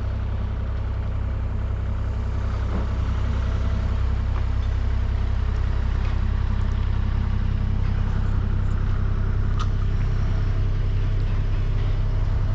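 Dump truck engine running steadily, a low hum that grows slightly louder as the truck moves up toward the driveway.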